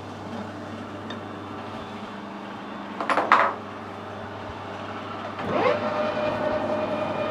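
Metal lathe starting up about five and a half seconds in: the motor and gearing whine rises in pitch and settles into a steady run as the four-jaw chuck spins. Earlier, about three seconds in, there is a brief double clatter of metal.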